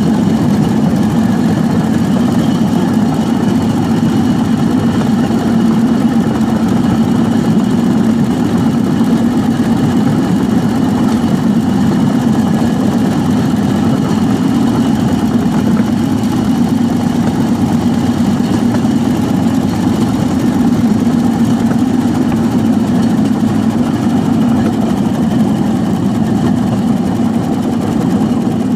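8 HP Briggs & Stratton single-cylinder engine running steadily at a constant speed, driving a homemade rail cart along the track.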